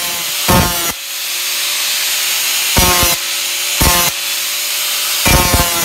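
Angle grinder with a 50-grit disc running at speed and grinding the steel edge of an axe head, with four short, louder passes as the disc bites the metal. Between passes the motor's steady whine carries on.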